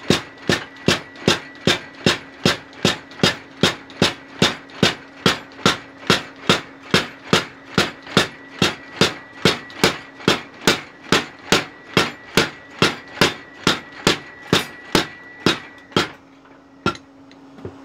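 Homemade 25 kg mechanical power hammer pounding glowing-hot steel on its anvil in a steady rhythm of about three blows a second. The blows stop about two seconds before the end, followed by a single knock, leaving the steady hum of the machine's electric motor.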